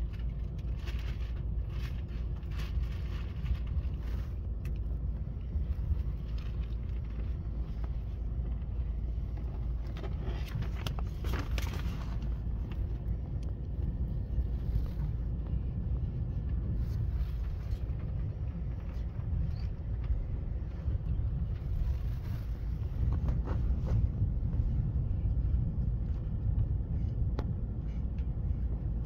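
Steady low rumble of a passenger train running on the rails, heard inside the carriage, with a few brief clicks and knocks. It grows a little louder about three quarters of the way through.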